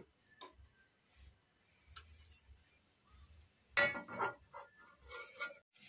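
Perforated metal skimmer clinking and scraping against a metal pot of hot oil while leftover onion bits are fished out. There are a few scattered clinks, with the loudest run of knocks about four seconds in.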